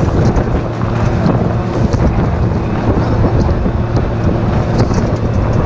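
Vehicle engine running steadily while driving over frozen lake ice, with heavy wind rushing over the microphone.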